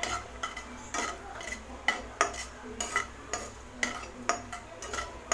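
Cashews and raisins frying in ghee being stirred in a pan, the spoon clinking against the pan in short, ringing knocks about two or three times a second.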